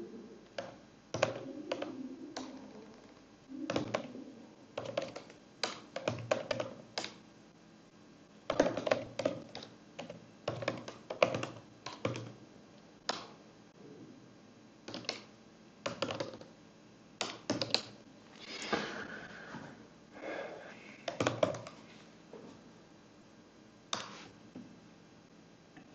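Computer keyboard typing: short runs of keystrokes with pauses between them.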